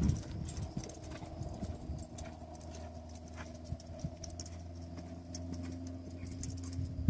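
Quarter Horse mare loping on soft sand arena footing: muffled hoofbeats with light clicks, over a steady low hum.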